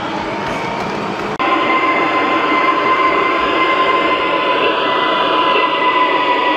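Gauge 1 model freight wagons rolling past on the track, then, after a sudden change about a second and a half in, a gauge 1 model electric locomotive running along the track with a steady high whine over the rolling noise.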